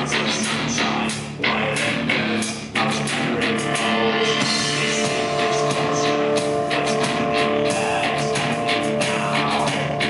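Live industrial rock band playing through a venue PA: electric guitar and drum kit with sustained keyboard notes. The music dips briefly about a second and a half in and again near three seconds.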